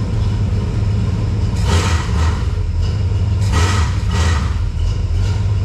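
Dodge D100's small-block V8 running steadily at idle, with three short hissing bursts over it. The engine still makes a noise with its belt freshly tightened, which the owner puts down to the water pump swapped in from another 318.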